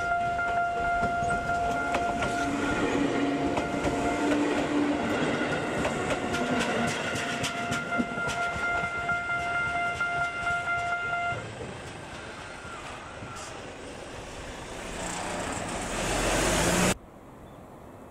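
Japanese level-crossing warning bell ringing steadily while a Tobu 8000-series train runs on the rails with a quick clicking of wheels over rail joints. The bell stops about eleven seconds in; near the end the train noise rises and cuts off suddenly.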